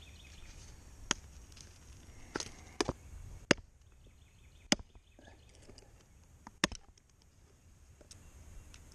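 Hatchet striking wood: about seven sharp, separate chops at uneven intervals.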